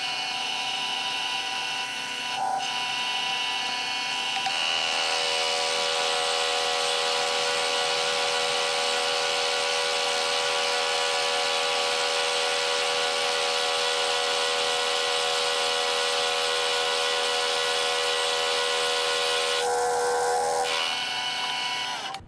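Vertical milling machine cutting a metal block with an end mill. The spindle and cutter give a steady whine over a hiss of cutting, the note firming up about four seconds in as the cut loads, and it stops near the end.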